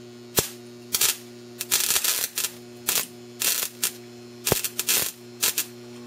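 Sparks snapping and crackling in irregular bursts, some single snaps and some short rattling runs, as a screwdriver is touched across the leads of a deshunted microwave oven transformer's low-current winding; the sparks behave like welding and engrave the screwdriver. The transformer's steady mains hum runs underneath.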